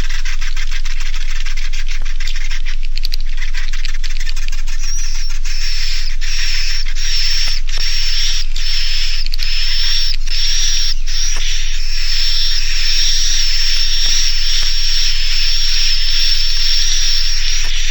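Edible-nest swiftlet roosting-call recording ("suara inap"), a swiftlet-farm lure sound: a dense, continuous buzzing twitter of many swiftlets with a thin high steady tone over it. The twitter is broken by a few brief gaps in the middle.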